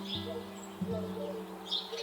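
Songbirds chirping: two short, high chirps, one near the start and one near the end, with a few smaller calls between. Soft plucked acoustic guitar notes ring under them.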